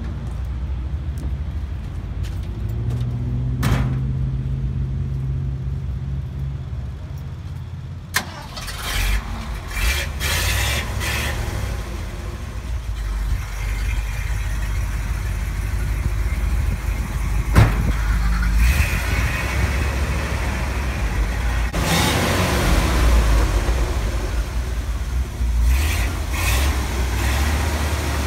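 Old 1962 Ford F-350 truck engine running at a steady idle, with louder stretches about nine seconds in and again past twenty seconds, and a couple of sharp clicks.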